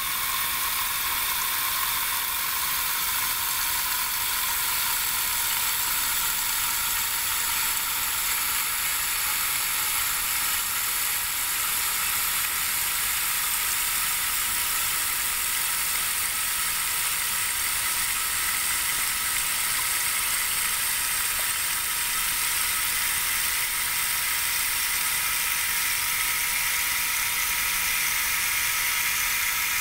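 Magic Chef 20-pound washer filling with water for the rinse: a steady hiss of water running into the tub.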